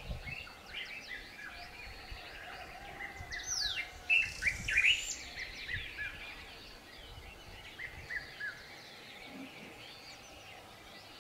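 Several birds calling and singing together in a dusk chorus of short chirps and whistles, many of them sliding downward in pitch. It is busiest a few seconds in, with a loud falling whistle near the four-second mark, over faint ambient background.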